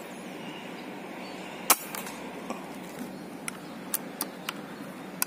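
A single sharp air rifle shot about two seconds in, followed by several faint ticks, over a steady outdoor hiss.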